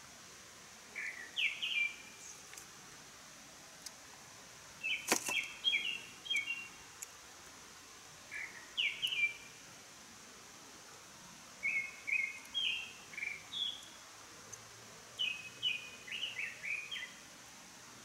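A small songbird singing short phrases of quick, clear notes, a phrase every three or four seconds. A single sharp click comes about five seconds in.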